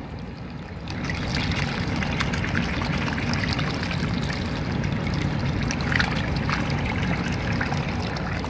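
Water gushing from the open end of a PVC air-conditioner condensate drain line and splashing onto soil and mulch, a steady rushing splash that grows louder about a second in. The line has just been flushed with a garden hose and is now clear and draining freely.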